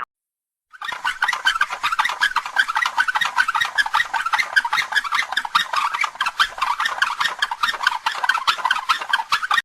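Sound-effect clip of dense, rapid animal chattering, like a crowd of small creatures or birds, lasting about nine seconds. It starts suddenly just under a second in and cuts off abruptly at the end.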